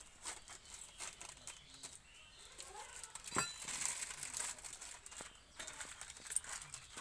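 Thin clear plastic bag crinkling and rustling as it is opened and pressed flat over a steel plate, with one sharp click about halfway through.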